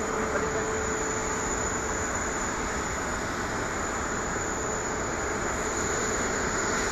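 Jet aircraft engines running steadily: an even rushing noise with a constant whine.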